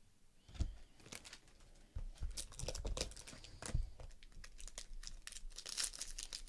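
Scattered small clicks and taps of cards and a plastic card holder being handled, then a silver foil trading-card pack crinkling and crackling as it is picked up and handled, densest near the end.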